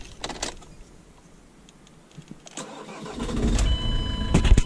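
Ford Transit diesel engine being started. A couple of clicks come first, then a quiet pause. About two and a half seconds in the engine cranks and catches, and it runs on at idle, with a short high beep soon after it fires.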